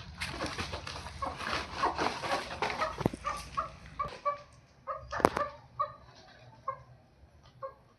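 Desi hens clucking in short repeated notes, mostly in the second half, over scuffling noise and a couple of sharp knocks.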